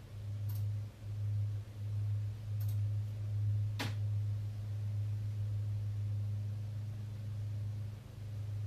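A steady low hum that swells and dips slightly in level, with three short clicks in the first four seconds, the last the sharpest.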